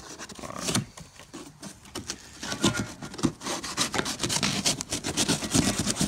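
Knife sawing and scraping through a taped cardboard box, with irregular rasping strokes and the rustle of torn cardboard and tape, getting busier and louder about two seconds in.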